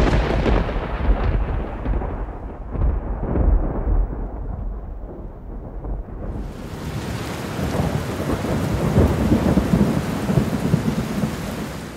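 Thunderstorm: a loud thunderclap at the start that rolls and rumbles away over a few seconds. Then steady heavy rain hiss swells in about halfway through, with more thunder rumbling beneath it.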